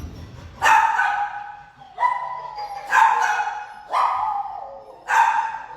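A dog barking loudly five times, about a second apart, each bark dropping in pitch.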